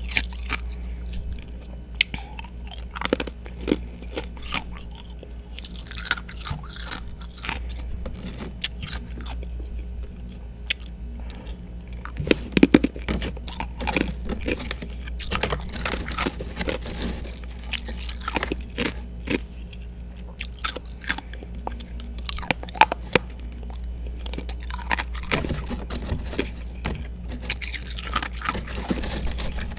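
A person biting and chewing ice close to the microphone: dense, irregular crunching and crackling, with a steady low hum underneath.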